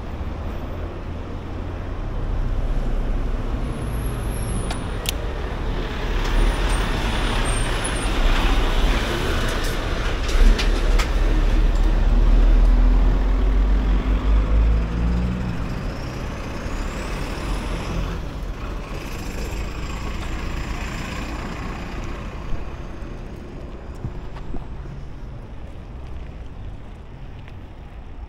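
Wind and road noise from riding a bicycle, picked up by a DJI Action 3's built-in microphone behind a foam windscreen: a steady low rumble under a rushing hiss, with traffic noise swelling to its loudest about halfway through and a few sharp clicks.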